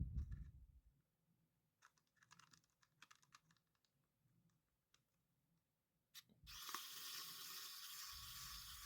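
Small electric screwdriver with a T5 Torx bit. A knock at the start and a few light clicks of the tool against the drone, then the screwdriver's motor runs for about three seconds as a steady high hiss, backing out a hinge screw.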